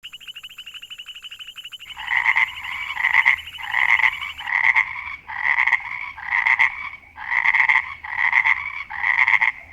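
Frogs calling: a fast high trill for about the first two seconds, then repeated croaks, roughly one a second.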